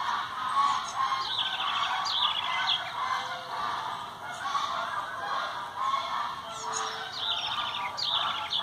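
A mixed flock of songbirds calling and singing together: a steady chatter of many calls, with short, quick trills that come twice in a row about a second in and again late on.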